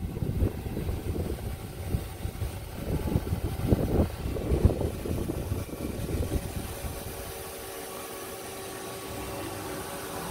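Irregular low rumbling and buffeting for the first seven seconds or so. It then settles into a steady hum with several held tones from a powered-on but idle Hyundai Wia KF4600 CNC vertical machining center, its spindle stopped.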